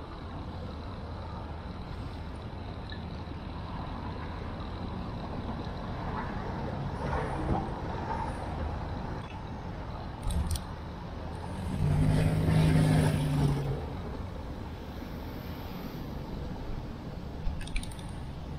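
City street traffic heard from a moving bicycle: a steady background of road noise, with a motor vehicle's engine passing close about twelve seconds in and humming loudest for under two seconds. A couple of short clicks come near the middle and near the end.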